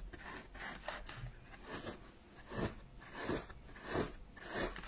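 Felt being pushed into grooves cut in a polystyrene foam pumpkin with a thin tool: a faint series of short scratchy scrapes, a little under one a second.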